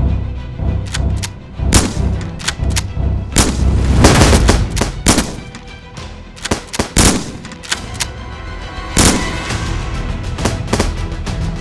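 Repeated sharp gunfire-like shots, some in quick bursts, over background music with a heavy bass.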